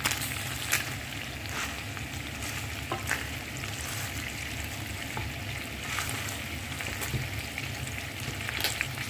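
Turkey necks frying in oil in an open pan: a steady sizzle with scattered short pops and crackles.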